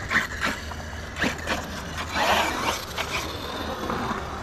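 Arrma Kraton EXB RC truck with a 1650 kV brushless system driving off under throttle, heard as a series of short rasping bursts of motor and tyre noise. The bursts thicken about two seconds in.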